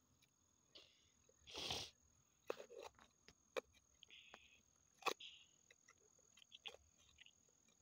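Hands digging in wet soil: scattered small scrapes and clicks, with one louder rustling scrape about a second and a half in. A faint steady high-pitched whine lies underneath.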